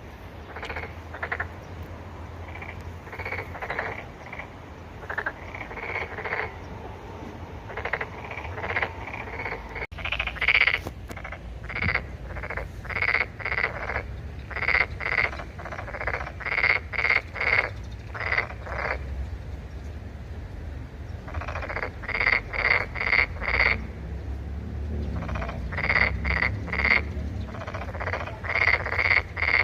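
Toads calling: short croaks repeated two to three a second in runs, with a brief lull partway through, over a steady low hum.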